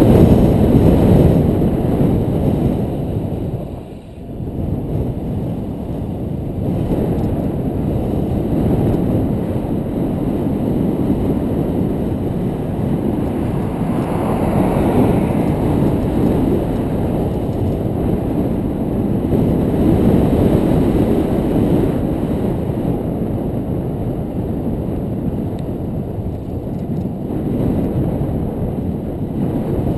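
Wind buffeting the bike-mounted camera's microphone during a fast bicycle descent: a loud, steady rumble that dips briefly about four seconds in.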